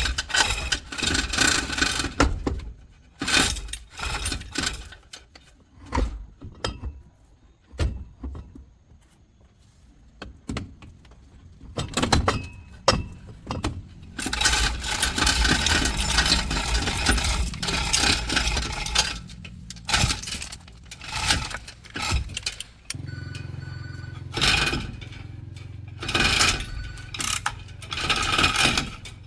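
Repeated metal clanking, rattling and scraping of tools and parts being handled. About three-quarters of the way in, a steady low machine hum starts beneath it.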